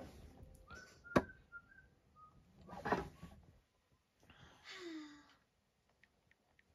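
Cartoon soundtrack heard through a small TV's speaker in a room: a sharp knock about a second in, then two softer noisy sounds, the second with a short falling tone.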